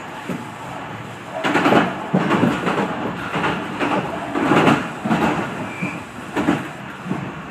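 Tobu 50000 series electric train running, heard from inside the front car: a steady rumble with irregular wheel clatter over rail joints and points from about a second and a half in, as the train comes into a station.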